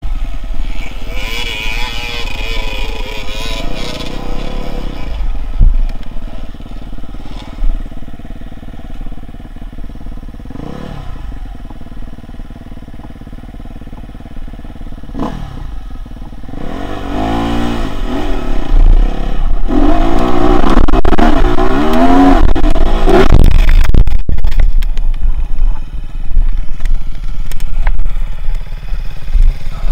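SWM RS300 dirt bike's single-cylinder engine revving up and down as it is ridden over a rough gravel trail, with loud rising revs in the second half. Near the end come clattering knocks and scraping as the bike crashes onto the gravel.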